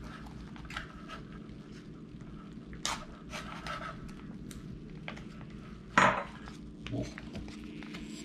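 Utensil and food pouch clinking and scraping on a stainless steel compartment tray as MRE black beans are emptied out, in a handful of sharp clinks, the loudest about six seconds in, over a low steady hum.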